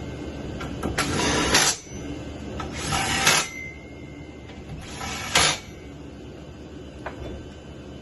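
Three short scraping, rattling mechanical strokes about two seconds apart, then a single light click near the end.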